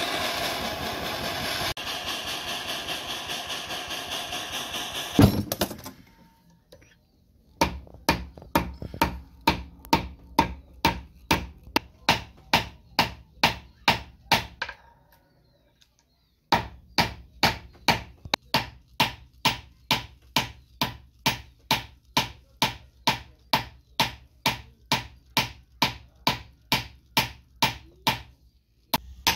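A gas torch blows steadily while heating silver bars, then stops with a single loud thump about five seconds in. After that a hammer strikes silver on a steel anvil block at an even pace of about two and a half blows a second, with a short pause midway.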